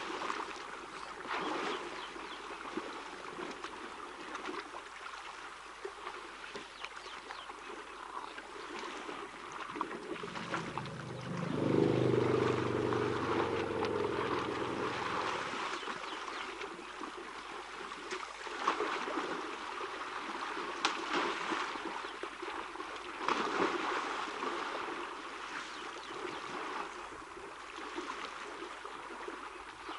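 Elephants splashing and wallowing in a shallow waterhole: steady sloshing water with frequent short splashes. About eleven seconds in, a louder low drone rises and lasts about four seconds.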